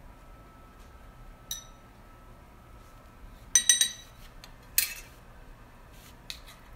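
A dish clinking as it is knocked: one sharp clink about a second and a half in, then a quick rattle of ringing clinks around three and a half seconds, the loudest part, and a short clatter about a second later.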